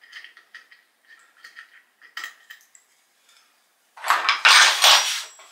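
Light metallic clinks and taps of hardware being handled, then, about four seconds in, a loud rough scraping noise as a provisionally mounted wooden board is worked off a wall.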